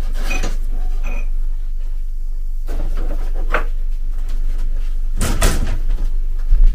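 Off-camera rummaging: a cupboard being opened and closed and things moved about, with scattered knocks and clatters, the loudest about five seconds in, and a heavy thump near the end.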